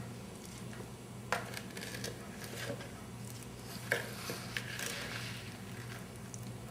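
Peach pie filling with big peach chunks being stirred by hand in a bowl: soft squishing, with a few sharp clicks of the utensil against the bowl.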